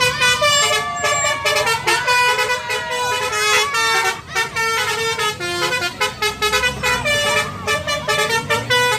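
Tour bus's basuri horn, a multi-tone musical air horn, playing a fast melody of short notes, with a low engine rumble underneath.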